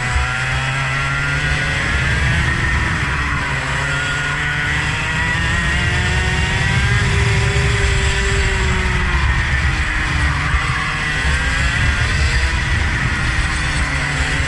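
Vehicle engine being driven hard on a circuit, its pitch rising and falling repeatedly as it accelerates and slows, over a steady low rumble.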